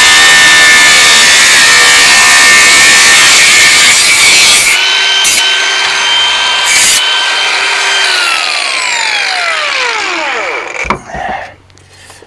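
Angle grinder grinding for about four and a half seconds, then spinning free with a steady whine. About eight seconds in it is switched off, and its whine falls as the disc winds down.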